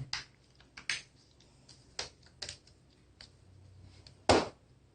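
Scattered plastic clicks and taps as a laptop's screen bezel is pressed around its edge to snap its clips into place, with one louder click near the end.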